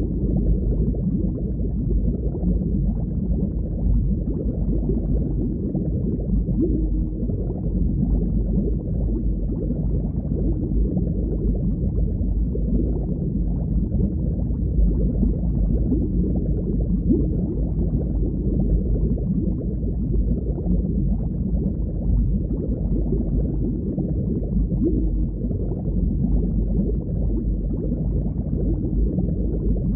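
Underwater ambience: a steady, low, muffled water noise with nothing high in it and no distinct events.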